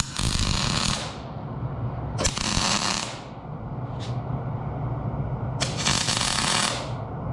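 MIG welder laying tack welds on a steel drilling jig: three crackling, sizzling arc bursts of about a second each and a very short one in between, over a steady low hum.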